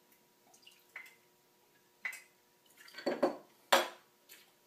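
Glass and metal bar ware clinking: a steel jigger, mixing glass and liqueur bottle knocked lightly together and set down on a tabletop while a cocktail is measured. A few separate short clinks come about one, two and three seconds in, with the sharpest near the end.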